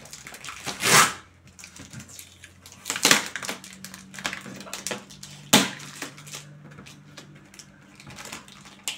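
Scissors cutting and prying at the plastic packing tape on a cardboard carton: tape tearing and cardboard crackling, in three louder bursts about a second, three seconds and five and a half seconds in, with smaller crackles between.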